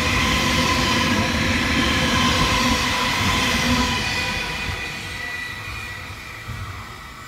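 Container freight train wagons rolling past at speed, the wheels rumbling with a thin steady whine over it. The last wagons clear about four seconds in, and the sound then fades as the train moves away.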